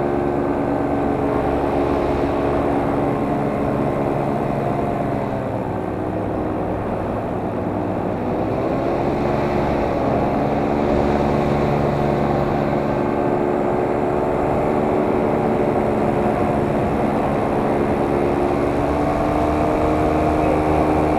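Camera drone's motors and propellers whining steadily in several tones. The pitch sags and climbs back about a third of the way in, and shifts again near the end, as the throttle changes.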